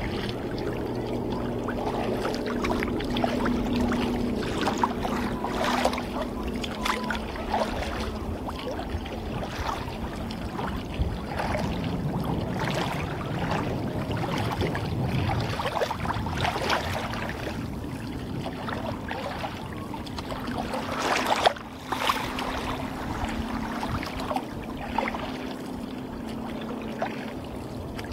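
Water splashing and lapping against a plastic kayak hull as it moves through choppy sea, in irregular slaps with one louder splash about two-thirds of the way through.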